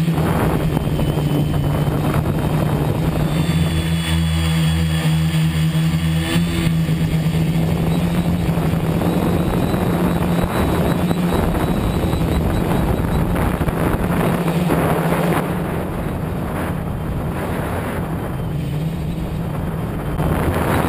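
Tricopter's electric motors and propellers buzzing steadily, picked up by the onboard camera. The buzz eases off for several seconds near the end, then picks up again.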